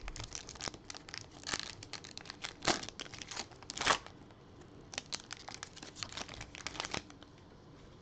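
Foil wrapper of an NBA Hoops Premium Stock basketball card pack being torn open and crinkled in the hands, an irregular run of crackling with the loudest crackles about three and four seconds in. It dies away about a second before the end.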